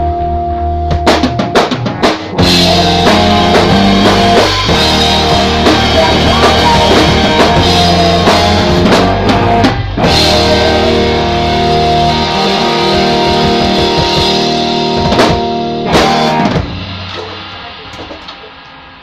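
Rock band playing electric guitar, bass guitar and drum kit together. Held notes ring at first, a few drum hits come in about a second in, and the full band plays until it stops about sixteen and a half seconds in, leaving the instruments ringing and fading away.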